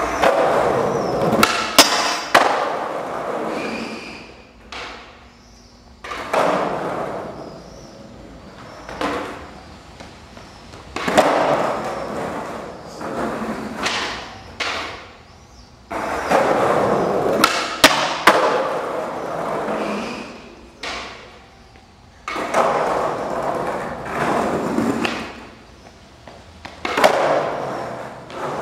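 Skateboard grinding a steel stair handrail, tried over and over: each go starts with sharp pops and knocks, then a second or more of metal scraping and wheels rolling, then a gap before the next.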